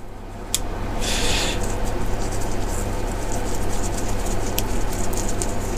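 Scratchy rubbing and handling noise of gloved hands working a hand-held brake pipe flaring tool and copper brake pipe, over a steady low hum. Two light clicks, about half a second in and near the end.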